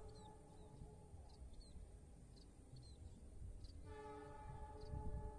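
Train horn sounding twice, faint: one long blast that ends about a second in, then a second blast starting near the end and held, each a chord of several steady tones. A low rumble and a few faint short chirps run underneath.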